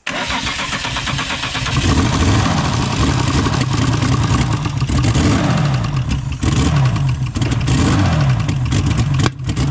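Holden VL Commodore engine cranking, then firing and revving unevenly on deodorant sprayed into the intake, dropping away near the end. It will not keep running on its own fuel, which the owner takes for a fuel problem.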